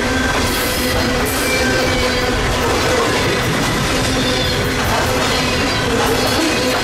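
Loaded coal cars of a heavy freight train rolling past close by: a steady, loud rumble of steel wheels on rail, with a thin, sustained wheel squeal and scattered clicks and clanks from the wheels and cars.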